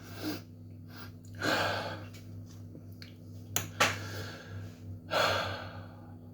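A man breathing out hard twice, about one and a half seconds in and again near five seconds, with two sharp clicks in between.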